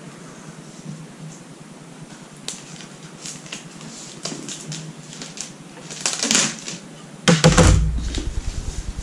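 White cardboard retail box for wireless earbuds being handled and opened by hand: scattered light clicks and scrapes from about two and a half seconds in, a louder rustle around six seconds, then a heavy thump and rubbing just after seven seconds, the loudest moment, fading in a fluttering rumble.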